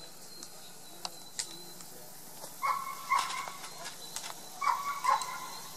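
A dog yelping in short pairs: two yelps about two and a half seconds in and two more about two seconds later. A couple of faint clicks come before them.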